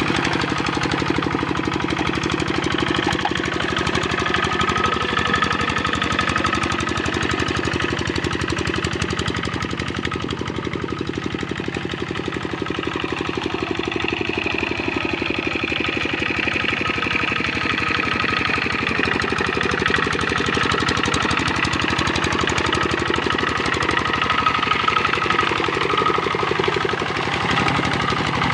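Kubota RD65 single-cylinder diesel engine on a hand tractor running steadily at work, with a rapid, even diesel knock.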